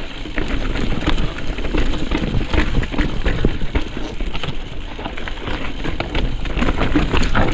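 Mountain bike riding over a rocky trail: tyres crunching over rock, with many sharp knocks and rattles.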